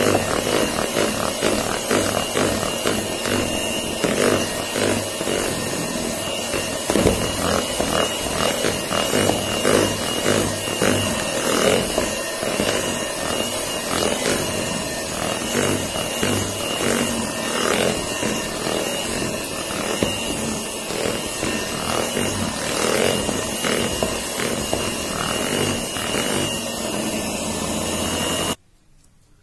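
Electric mixer beating butter and icing sugar into buttercream in a plastic bowl. The motor gives a steady high whine over a fast, uneven churning of the beaters through the mixture. It switches off near the end.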